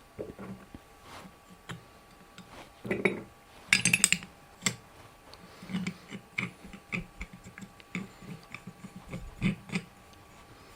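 Light metallic clicks and clinks of a low-angle block plane being handled as its bevel-up blade is set back in and locked in place, with a sharper cluster of clinks about four seconds in.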